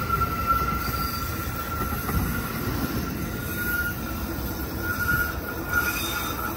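Light rail train wheels squealing steadily as the train rounds a curve, one high held squeal over the low rumble of the passing cars.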